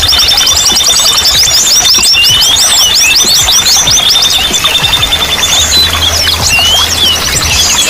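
Several small songbirds singing at once in a dense, high-pitched chorus. In the first few seconds it opens with a fast run of repeated chirps, about ten a second.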